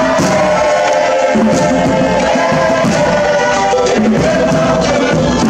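A group of Cook Islands singers chanting a song together in unison, backed by strokes on a large rope-laced skin drum.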